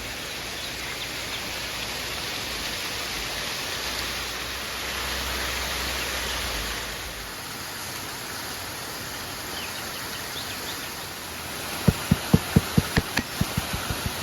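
Steady rushing of a river. Near the end, a quick, even run of knocks starts, about five a second.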